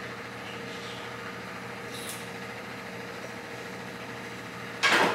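Steady low hum and hiss of a running kitchen appliance, with a faint steady tone in it. Near the end a sudden loud clatter cuts in.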